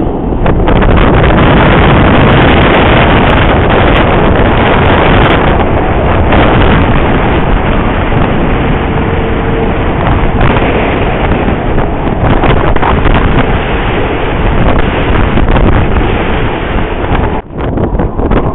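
Strong wind buffeting the microphone: a loud, dense rumble that drops away briefly near the end.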